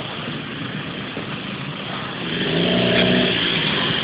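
A motor vehicle's engine running in street traffic, over a steady hiss, growing louder about two and a half seconds in.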